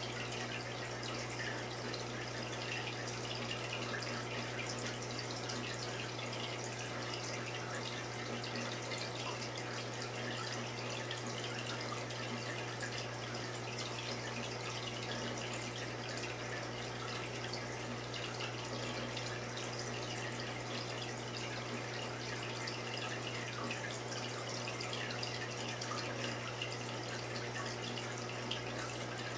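Saltwater reef aquarium's circulating water trickling and splashing steadily, over a steady low hum from its pump and filtration equipment.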